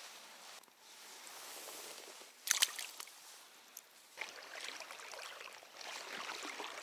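Shallow river water sloshing and splashing, with one sharp splash or knock about two and a half seconds in.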